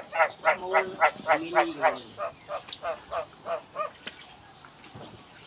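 A rapid series of short animal calls, about four a second, growing fainter and stopping about four seconds in.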